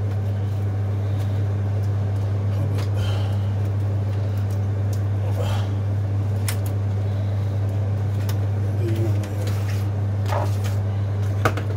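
A steady low electrical-sounding hum, with scattered light clicks and knocks about every second or two.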